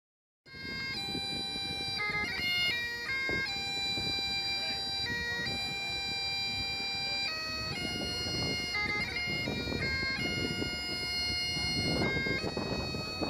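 Great Highland bagpipe playing: steady drones under a changing chanter melody, with background noise beneath. It starts about half a second in, after a moment of silence.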